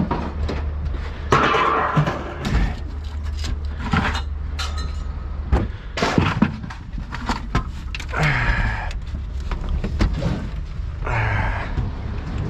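Heavy scrap metal being thrown off a truck onto a pile: repeated knocks and thuds with several loud ringing clangs of sheet metal, over a steady low engine rumble.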